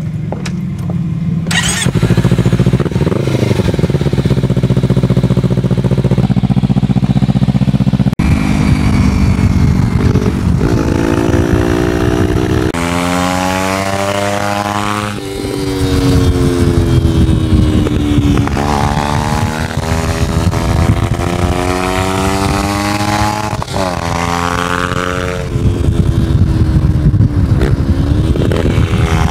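2013 Kawasaki Ninja 300's parallel-twin engine running at a steady pitch for about the first eight seconds. Then it revs up and drops back again and again, the pitch climbing and breaking off several times as the bike accelerates through the gears.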